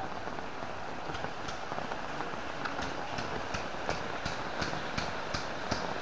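Heavy rain falling steadily on an umbrella and a wet road. From about three seconds in come quick, regular footsteps, a little under three a second.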